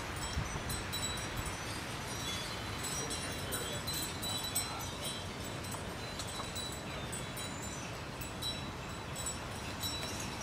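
Floodwater running down a narrow drainage channel, a steady trickling and splashing over many small clicks and drips.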